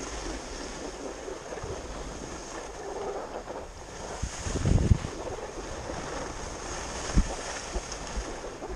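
Wind rushing over a GoPro action camera's microphone during a downhill ski run, buffeting hardest about four to five seconds in, with one sharp knock about seven seconds in.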